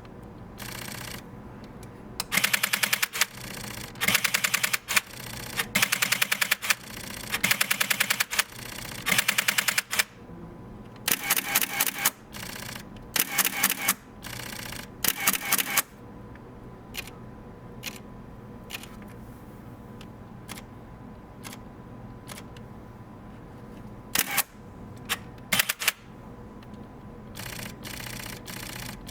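Camera shutters firing: about eight one-second bursts of rapid continuous shooting, then single shutter clicks about a second apart, broken by two more short bursts.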